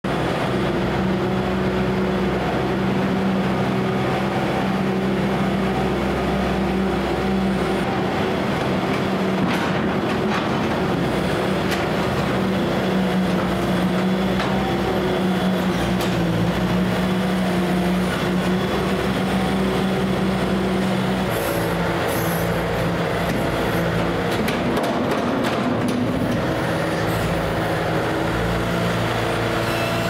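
Bobcat S250 skid-steer loader's diesel engine running steadily under load as it pushes litter, its speed changing a few times in the second half, with occasional knocks from the bucket and frame.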